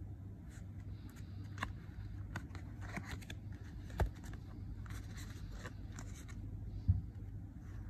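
Playing cards being handled: the cards fanned and slid against one another with light clicks and rustles, and two soft knocks about four and seven seconds in, over a steady low hum.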